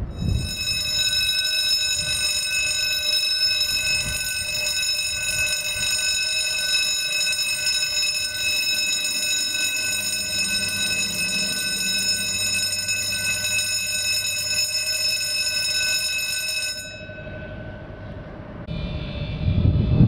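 Warning bell of a movable road bridge ringing steadily as the bridge closes to traffic, with a low hum added about halfway through; the ringing stops suddenly and a shorter, higher-pitched signal sounds near the end.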